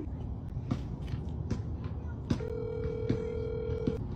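A smartphone plays a ringback tone through its speaker while calling a number: one steady ring lasting about a second and a half, starting a little over halfway in. Soft clicks come roughly every second over a low background rumble.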